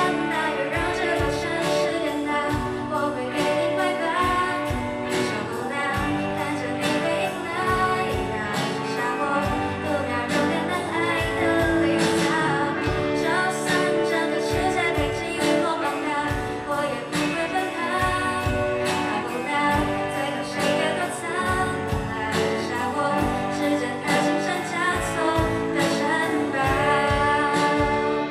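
Live rock band playing a pop ballad: a woman singing lead over a drum kit, electric guitars, bass guitar and keyboard, with a steady drum beat.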